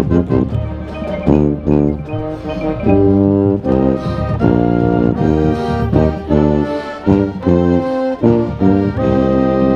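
Marching band playing, brass instruments sounding short punctuated notes and then longer held chords.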